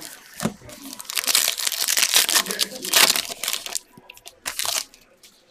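Foil wrapper of a football trading-card pack crinkling and tearing open, a dense crackle that is loudest near the middle. It gives way to a few softer rustles and clicks as the cards are handled.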